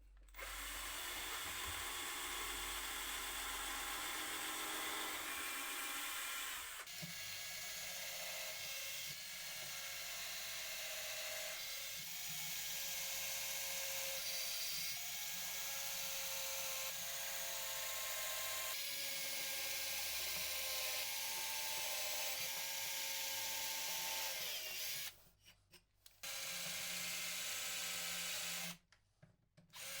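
Small handheld electric power tool running on wood, a steady motor whir whose pitch shifts a few times as the load changes. It stops briefly twice near the end and starts again each time.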